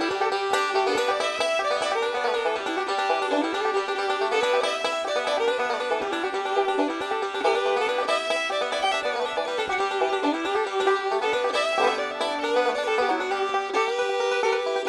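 Background music: a bright, quick plucked-string tune led by banjo, in a bluegrass style.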